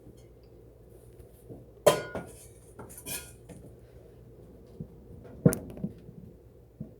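Kitchen dishes and utensils being handled and set down on a counter. There are two sharp knocks, about two seconds in and again past five seconds, with a few smaller clinks and a short rustle between them.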